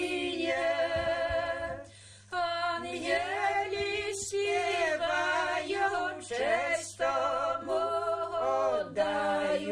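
A women's folk ensemble singing a Christmas carol a cappella in slow, held phrases, with a short break for breath about two seconds in.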